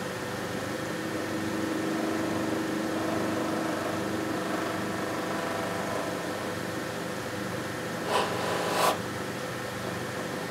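KERV slow-speed bench grinder running steadily with a cloth buffing wheel, as a black lacquer guitar body is buffed to a gloss against the wheel. A brief scuffing noise in two quick pulses, louder than the motor, comes about eight seconds in.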